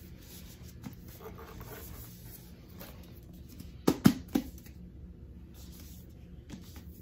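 Quiet handling of a hardcover book and its packaging: soft rustling, with a quick run of three knocks about four seconds in, the middle one loudest.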